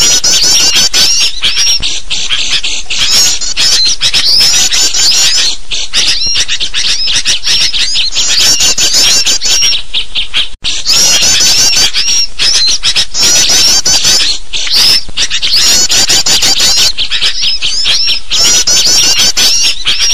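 Bird-lure recording of sooty-headed bulbuls calling noisily, mixed with the rapid chirps of small songbirds, dense and continuous. There is a brief cut about ten and a half seconds in.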